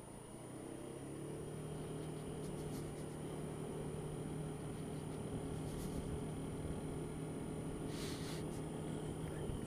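Honda Dio scooter's engine picking up speed after a corner, then running at a steady pitch while riding, easing off near the end. A brief hiss about eight seconds in.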